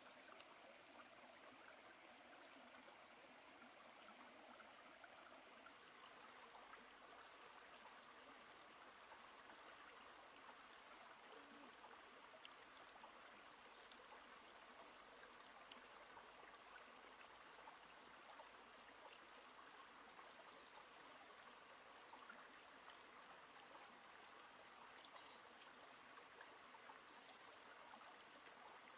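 Faint, steady trickle of a shallow stream running over rocks.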